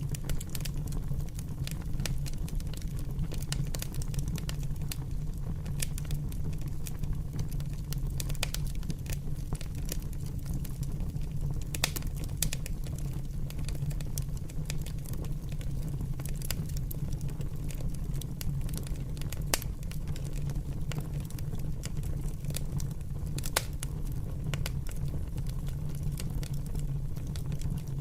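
Fire crackling: a steady low rumble of flames under frequent sharp pops and snaps, a few of them louder than the rest.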